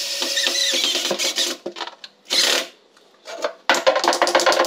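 Cordless drill-driver whirring as it drives a screw into a cabinet panel, stopping about a second in. Short stop-start bursts follow, then a quick run of sharp clicks near the end.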